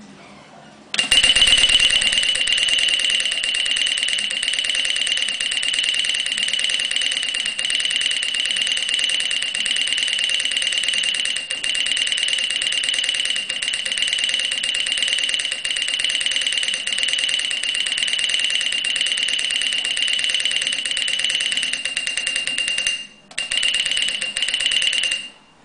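Mechanical twin-bell alarm clock ringing: its hammer strikes rapidly between the two brass bells in one fast, continuous ring. It starts about a second in, breaks off for a moment near the end, rings again, then stops.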